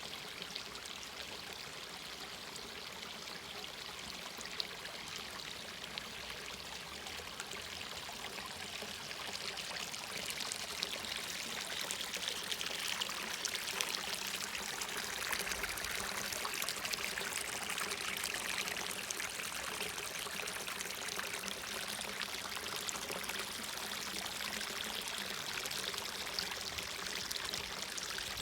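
Creek water running in a steady rush, growing a little louder about a third of the way in.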